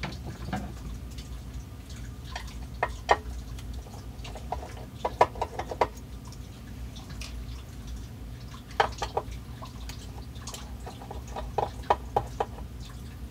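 Scattered small clicks and taps, in short clusters, of hands and a screwdriver handling the cueing lift mechanism on the underside of a Technics SL-1300 turntable, over a steady low hum.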